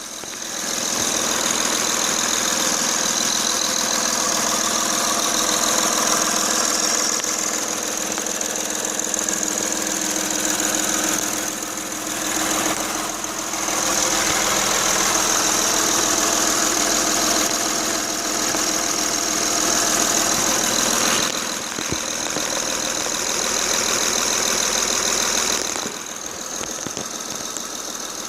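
Honda Ridgeline's 3.5-litre V6 running at idle with a persistent knock, its volume dipping briefly a few times. The knock carries on with each coil pack unplugged and with the fan belt off, which the owner takes to rule out the front accessories as its cause.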